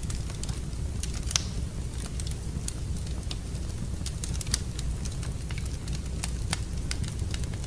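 Fire crackling in a fireplace: irregular sharp snaps and pops over a steady low rumble, with one louder pop about a second and a half in.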